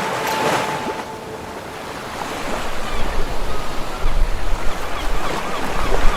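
Sea water washing and splashing against a yacht, with wind buffeting the microphone; the wind rumble grows louder and gustier after about two seconds.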